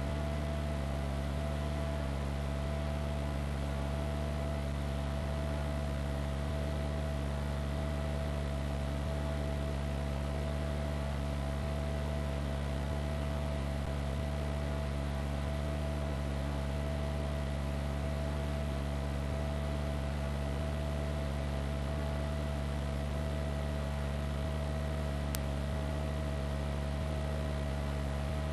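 Steady helicopter drone: a constant low hum with a high whine held on one pitch, over a hiss.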